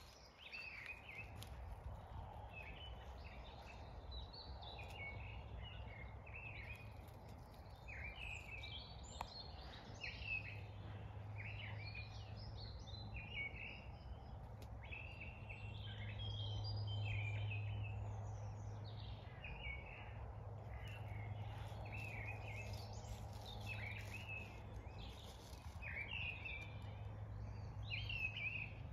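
Wild birds singing and calling, an unbroken stream of short chirps and warbling phrases from several birds, over a steady low hum.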